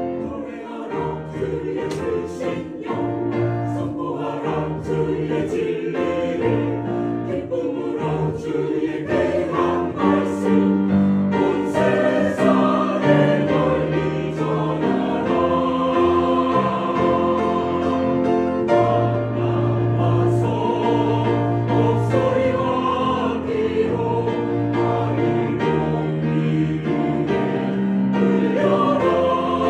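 A mixed church choir of men and women singing a gospel anthem in Korean, with long held notes.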